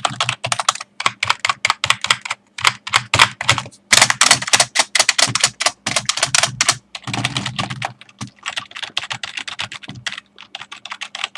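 Fast typing on a Microsoft Wired Desktop 400 keyboard with silicone rubber-dome keys: a dense run of key clatter, broken by a few brief pauses.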